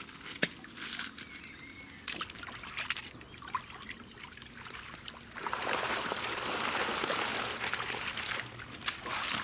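Water pouring and trickling, rising to a steady rush about five and a half seconds in; before that, a few light knocks and small splashes.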